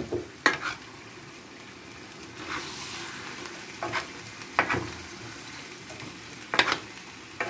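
Beef chunks with carrots frying in juices in a black electric skillet, sizzling steadily as they are browned. A metal spoon stirring and turning the meat scrapes and knocks against the pan a few times.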